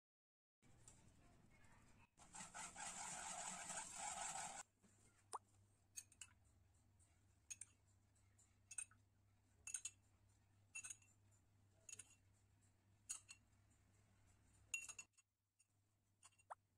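A couple of seconds of dry rustling as a mesh sieve of flour is shaken over a saucepan, then a metal spoon clinking against a glass of orange juice about once a second, some ten times, as the juice is spooned over a baked sponge cake. A faint steady hum runs underneath.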